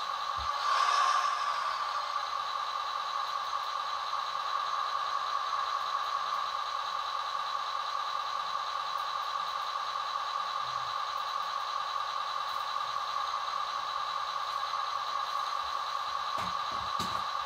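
The sound module of a 1/16 scale Wedico DAF XF 8x8 RC truck plays a diesel engine sound through its small speaker. The sound swells briefly about a second in, then settles into a steady idle.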